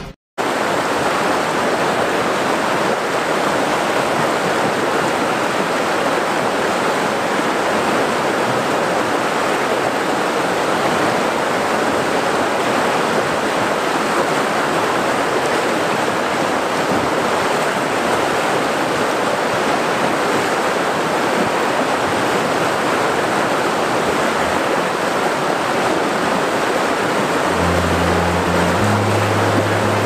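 River water rushing steadily over rocks, a dense even roar of flowing water. Low musical notes join underneath near the end.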